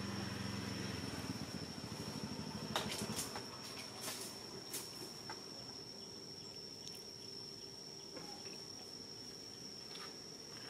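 A steady high-pitched insect drone, one unbroken tone. A low engine hum fades out in the first second or two, and a few sharp clicks come around three to five seconds in, the loudest near three seconds.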